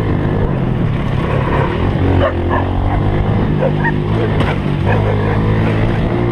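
Honda Pop's small single-cylinder motorcycle engine running steadily under way, with a few short dog barks over it around the middle.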